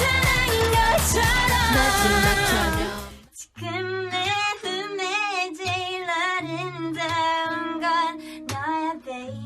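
Pop song with a woman singing. The full backing with its beat drops out about three seconds in, and the voice carries on over a sparse, low accompaniment.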